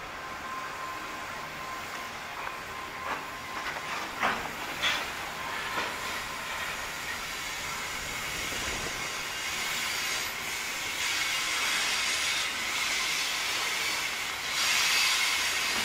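Loaded coal hopper wagons rolling slowly past on the rails, with several knocks a few seconds in and a thin steady squeal. A hiss grows louder over the last few seconds.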